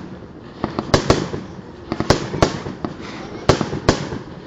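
Aerial fireworks bursting: about eight sharp bangs at uneven intervals, some in quick pairs, with a steady haze of sound between them.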